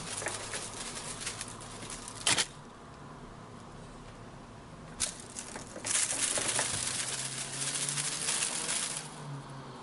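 Crinkly rustling as a kitten bats at a feather wand toy on a satin cushion, with a sharp tap about two seconds in and another about five seconds in, and a longer, denser stretch of rustling in the second half.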